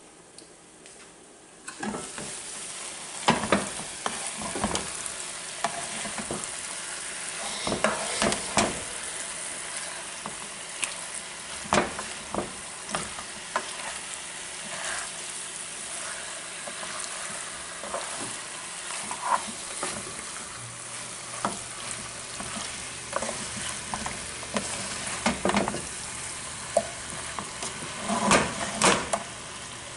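Curry chicken sizzling in a non-stick frying pan as it is stirred with a plastic spatula, the spatula scraping and knocking against the pan at irregular moments. The sizzling starts about two seconds in; the chicken is frying in its own juices with no water added yet.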